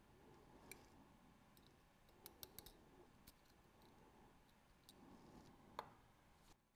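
Faint, sparse clicks of steel tweezers and tiny steel parts against a watch movement (ETA 2892-A2) held in a movement holder, as the dial-side parts are taken off. A quick run of three clicks comes about halfway through, and the loudest click, with a brief ring, comes near the end.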